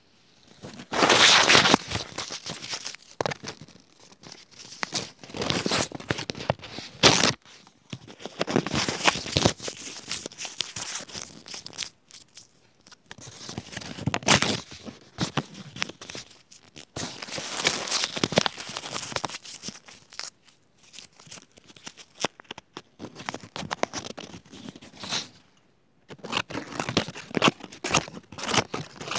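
Close crinkling and rustling handling sounds, coming in irregular bursts of a few seconds with short pauses between.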